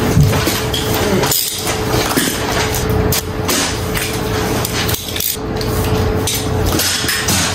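Tapping and clinking of small metal parts and tools during wagon assembly, over a steady hum.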